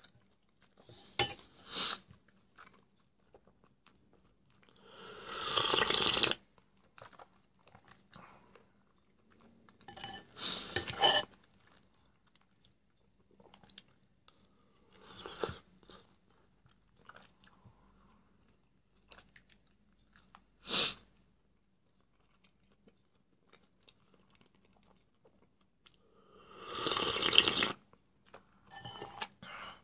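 Close-up eating sounds of a man eating soup and bread from a spoon: chewing and mouthfuls in separate noisy bursts every few seconds, two of them longer, with quiet between.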